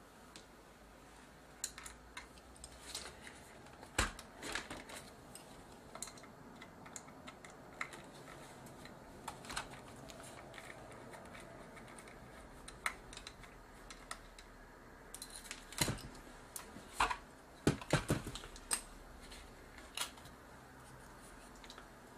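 Small screwdriver working screws out of the plastic handle and cover of a Sony PMW-EX1 camcorder: scattered light clicks and taps, then a denser run of louder knocks and rattles in the second half as the loosened parts are handled.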